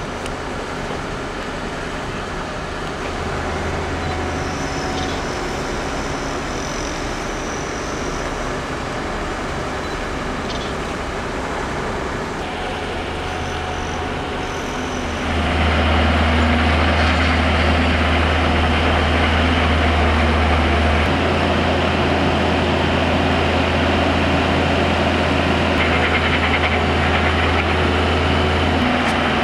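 Engine of heavy site machinery running steadily with a deep hum, stepping up louder about halfway through.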